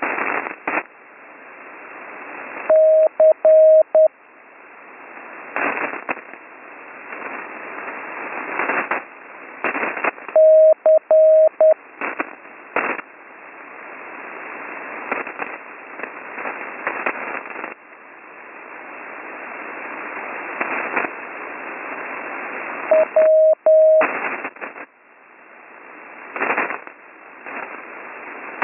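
Slow Morse code (CW) tone near 600 Hz received over HF radio: three short groups of dits and dahs several seconds apart, the letters C, C and W. Loud static crashes and hiss from a nearby lightning storm crackle throughout.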